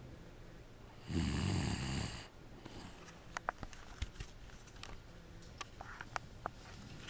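One loud snore about a second in, lasting about a second, followed by a few faint clicks.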